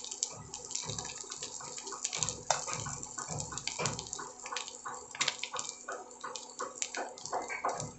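Fish roe and liver pieces sizzling in hot oil in a stainless steel frying pan, with many irregular crackles and pops.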